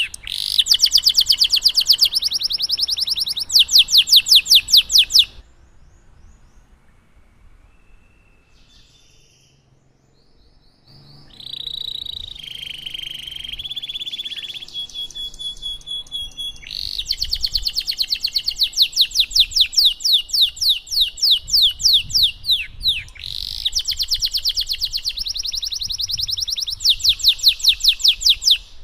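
Domestic canary singing in long, rapid rolling trills of fast repeated notes. About five seconds in it drops to a few faint notes, then resumes with warbling phrases and more long trills until it stops near the end.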